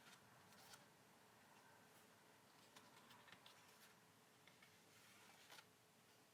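Near silence: quiet room tone with a few faint, soft clicks and rustles of photobook pages being handled, scattered through the stretch.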